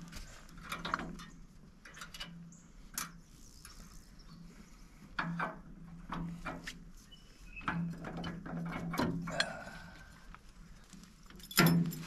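Scattered metal clanks and knocks from tractor implement pins and mounting parts being pulled and worked into line, with a low hum coming and going and a louder knock near the end.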